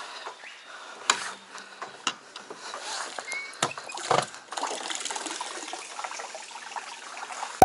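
Water swishing and lapping against a small boat's hull, with scattered clicks and a few sharp knocks from gear aboard.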